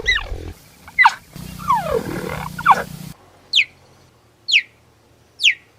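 Cheetah chirping: a series of short calls that fall sharply in pitch, ending with three high chirps about a second apart.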